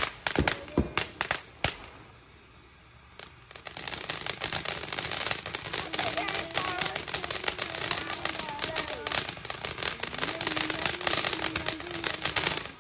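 Consumer fireworks going off: several sharp bangs in the first two seconds, then, after a short pause, about nine seconds of dense, rapid crackling that cuts off suddenly near the end.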